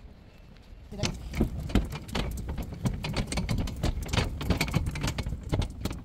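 Quick, irregular clattering and knocking from walking with a pushchair over a hard walkway: footfalls and wheel knocks, several a second. It starts abruptly about a second in.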